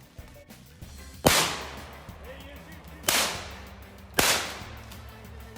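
Three gunshots fired at a squirrel up in a tree, the first a little over a second in and the last two about a second apart, each with a short fading echo.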